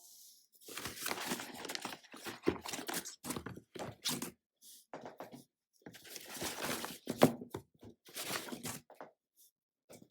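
Packaging torn open and crinkled by hand in a run of short, irregular noisy bursts with brief pauses.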